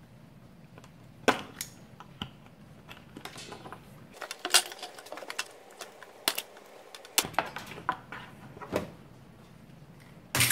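Irregular clicks and light metallic clinks as the steel wire handle of a 5-gallon plastic bucket is cut and pried out of its plastic ears with a utility knife.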